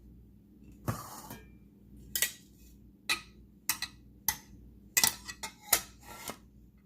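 A spoon rest and cookware being handled on a table: a string of sharp clicks and knocks as the hard pieces are picked up and set down, with a short rustle of packaging about a second in.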